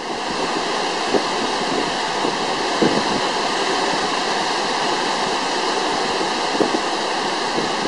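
Typhoon wind and heavy surf breaking over a seawall: a steady, unbroken rushing noise.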